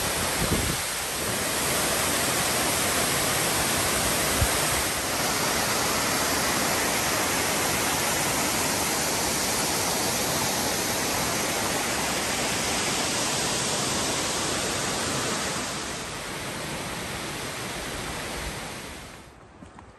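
Waterfall rushing: a steady, even wash of falling water, easing slightly about sixteen seconds in and dropping away sharply near the end.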